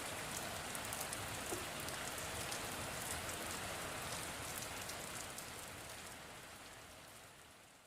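Steady rain falling, an even hiss dotted with the sharp ticks of single drops, fading out over the last few seconds.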